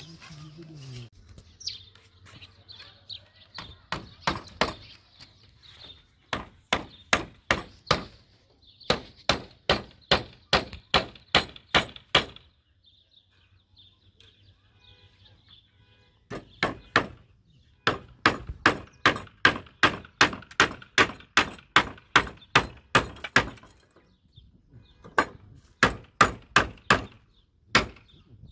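Hammer driving nails into old wooden planks: runs of steady blows at about two a second, broken by a few short pauses.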